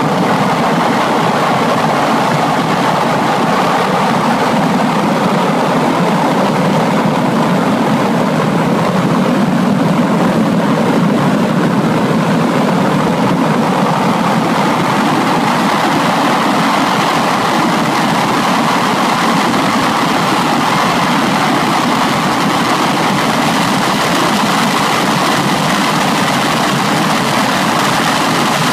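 Two home-built gas-turbine jet engines on a Mini running steadily with the car standing still: a loud, even rush with a faint high whine.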